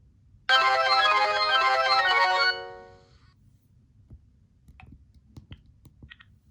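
Motorola RAZR V8 playing a short polyphonic ringtone: a quick run of synth notes lasting about two seconds, then dying away. A few faint clicks follow near the end.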